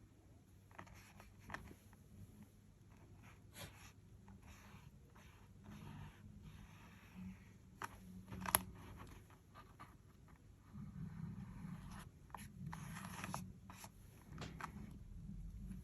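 Soft scratching and dabbing of a paintbrush working watercolour on paper, with scattered light taps and one sharper click about eight and a half seconds in. The strokes come more thickly in the last few seconds.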